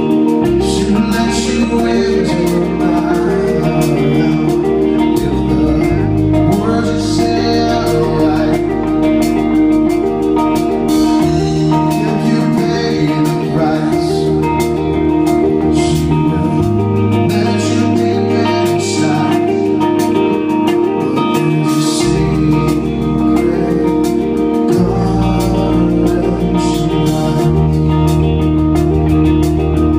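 Live band music: electric guitar with a male singer over a steady pulsing figure, and a bass line that moves to a new note every few seconds.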